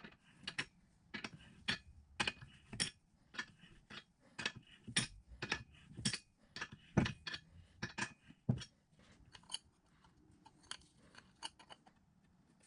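Irregular metal clicks and clinks of hand tools (a hex key and wrench) working against the cast-iron parts of a drill press being handled and fitted together. The clicks come thick and fast for the first eight or so seconds, then thin out to fainter ticks.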